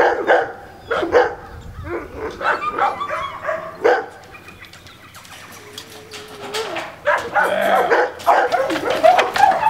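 Dogs barking repeatedly in short barks, with a quieter stretch in the middle and dense barking near the end.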